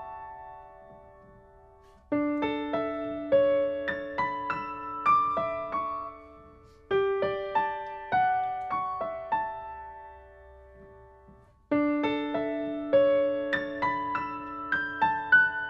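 Slow, gentle solo piano music: phrases of single notes over a held low note, each phrase fading away before the next begins about every five seconds.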